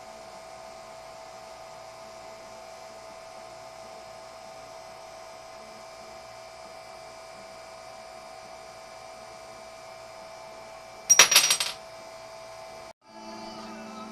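A steady hum, broken about eleven seconds in by a brief, loud metallic clatter with a ringing tail.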